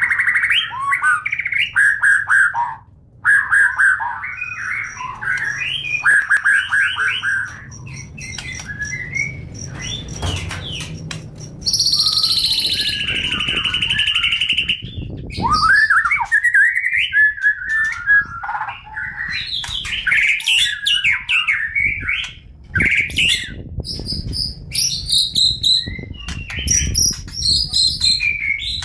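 White-rumped shama (murai batu) singing a long, varied song of clear whistles, rapid trills and chattering phrases, some notes sweeping up and down, with a brief pause about three seconds in.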